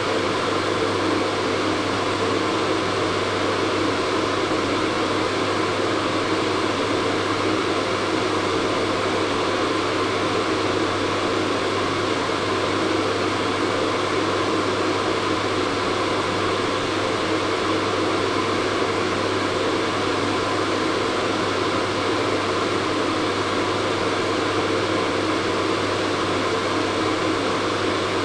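Hair dryer running steadily: a constant blowing hiss over a low motor hum.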